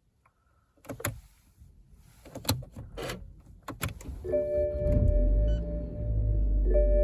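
A few clicks and knocks, then the BMW E87 116i's four-cylinder petrol engine starts about four seconds in and runs at a steady idle. Steady tones sound over it.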